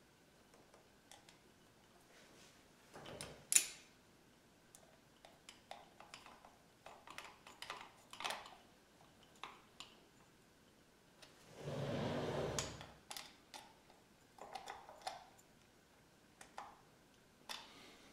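Scattered small clicks and taps of hands fitting an ebike display into its plastic handlebar mount, with one sharp click a few seconds in and a longer, louder rubbing handling noise about twelve seconds in.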